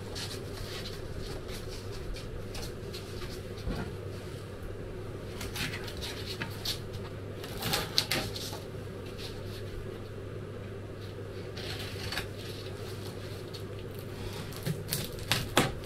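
Utility knife scraping and cutting through small pieces of material on a wooden workbench, with scattered light clicks and taps as the pieces are handled, over a steady low hum.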